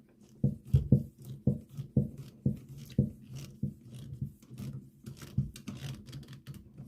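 Light knocks and clicks from hand work on a toggle switch's wiring, coming roughly two a second and getting fainter toward the end.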